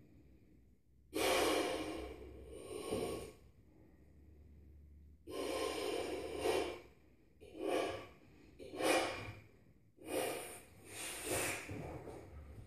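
A man blowing air by mouth into a large balloon held at his lips: about five breathy puffs of one to two and a half seconds each, with short pauses between them.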